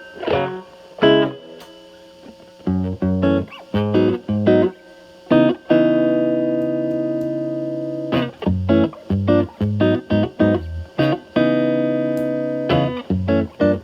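Telecaster with Alnico pickups played through a Fender Pugilist distortion pedal in series mode, both gain stages stacked with Gain A around 11, into a Marshall Valvestate amp's clean channel. It plays short, choppy chords and notes, with one chord left ringing for about two and a half seconds near the middle.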